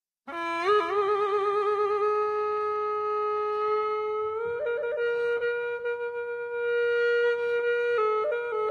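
Khmer khloy, a bamboo duct flute, playing solo: a note slides up into a long held, wavering tone, steps up in pitch about four seconds in, and breaks into quick trilled ornaments near the end.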